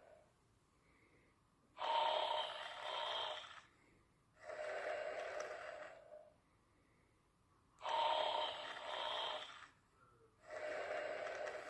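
Someone snoring in a slow, even rhythm: two full breaths, each a louder, two-part snore followed by a softer, lower one, with short quiet pauses between.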